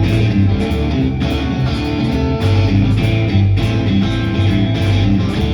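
Instrumental band music between sung lines of a worship song: strummed and picked guitars over a steady bass and beat.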